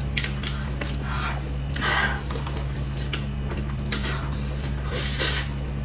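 Close-miked eating sounds of soft purple taro cake: small clicks of a spoon at the mouth, chewing and lip smacks, over a steady low hum.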